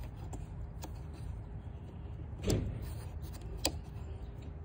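Plastic clicks and knocks as an electrical connector on a car's air-intake duct is handled and its locking tab worked, over a steady low background rumble. The loudest is a single knock about two and a half seconds in, followed by a sharp click about a second later.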